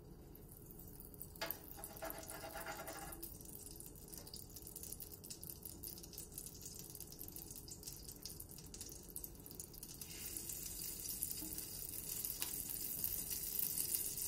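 Butter melting in hot olive oil in a frying pan: a faint sizzle that grows steadily louder as the pan heats. A light clink of a utensil about a second and a half in.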